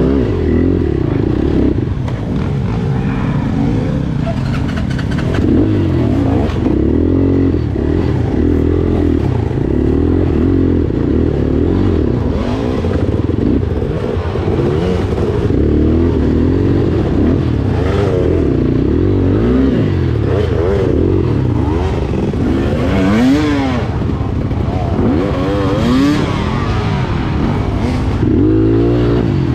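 GPX FSE250E dirt bike's single-cylinder four-stroke engine being ridden hard on trail, revving up and down over and over, its pitch rising and falling every second or two. Occasional knocks and rattles from the bike come through.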